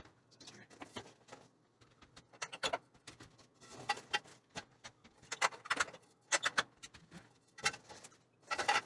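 Old fluorescent light tubes being handled and removed from the fixture: irregular clicks, taps and light rattles, coming in small bunches that grow busier from a few seconds in.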